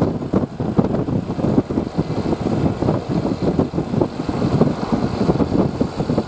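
Bus engine running: a low, uneven noise with no musical horn sounding.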